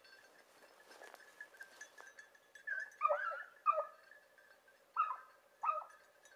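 Beagle giving tongue while running a hare's trail: short, high-pitched yelping cries in two bursts, the first about three seconds in and a pair about a second later.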